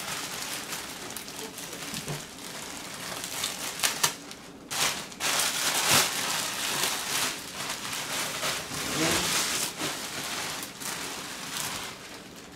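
Plastic bubble wrap crinkling and rustling as it is handled and pulled off a tennis racket, with many sharp crackles in uneven spurts.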